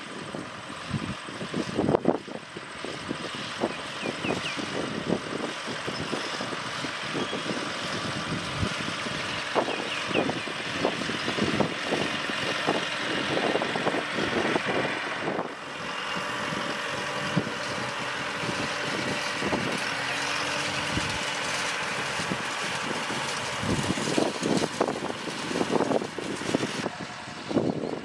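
Tractor engine running steadily while it pulls a hay rake through cut hay, raking it into rows, with uneven buffeting over the steady engine note.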